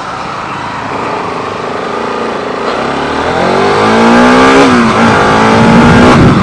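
Bajaj Pulsar RS 200 single-cylinder motorcycle engine accelerating over a haze of wind and traffic noise. Its pitch rises about halfway through, dips briefly near the end as a gear changes, then holds steady as it grows louder.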